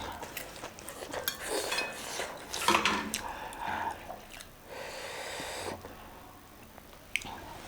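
Eating at a table: cutlery and dishes clinking and clattering in scattered sharp clicks, with a steady hiss lasting about a second a little past the middle.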